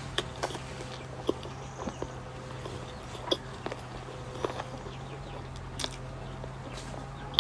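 Close-miked chewing and biting of pork momos: irregular short clicks and smacks of the mouth, over a steady low hum.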